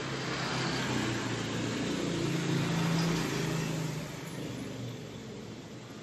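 A motor vehicle engine hums steadily nearby, swelling to a peak about three seconds in and then fading away.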